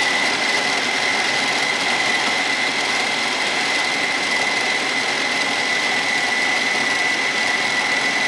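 Philips food processor motor running steadily, its blade chopping walnuts, Brazil nuts and Medjool dates into a crumbly dough, with a constant high whine over the churning.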